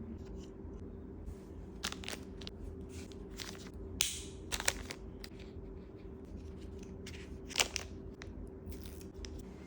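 Packaging being handled during an unboxing: scattered short clicks, crinkles and rustles, with a longer tearing or rustling sound about four seconds in and a sharper click near the end, over a faint steady hum.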